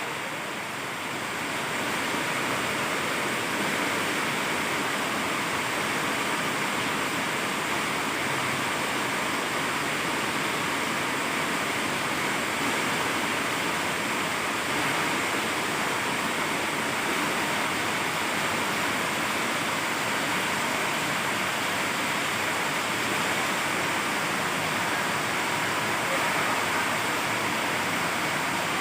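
Heavy rain falling steadily, a dense, unbroken hiss.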